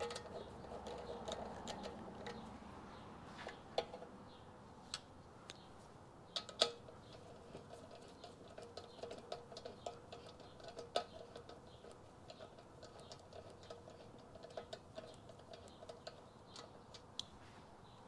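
Faint scattered clicks and ticks of small parts and hand tools being handled during motorcycle assembly, with a few sharper knocks and a run of small quick ticks in the middle, over a faint steady hum.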